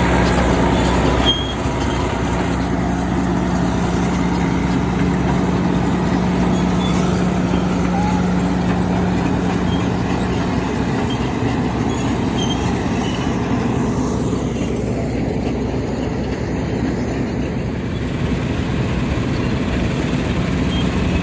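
Vintage farm machinery engines running steadily, a continuous drone with a held hum through the first half, as harvesting gear works.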